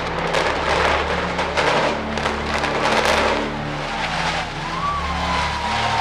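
Demolition of a derelict building: a loud, steady rumble of crashing and crumbling debris, dotted with sharp cracks, with a few thin squeals sliding up and down in the last second and a half.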